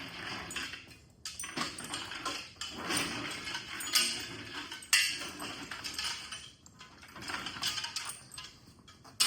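Engine hoist (cherry picker) being pushed across the shop floor on casters that don't roll well, scraping with metal rattling and clanking; two sharper knocks about four and five seconds in.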